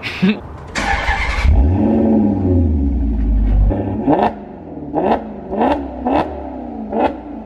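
Maserati GranTurismo MC's naturally aspirated V8 exhaust in an underground parking garage. It surges once and slowly falls back, then is blipped five times in quick succession, each a sharp rise in revs that drops straight back toward idle.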